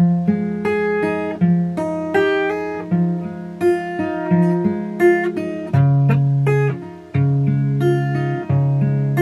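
Steel-string acoustic guitar with a capo, fingerpicked: single notes picked over ringing chords. In the second half a low bass note is struck about once a second.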